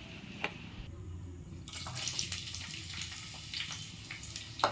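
Water running from a tap into a sink, starting a little under two seconds in, with a few short clicks and knocks of things being handled.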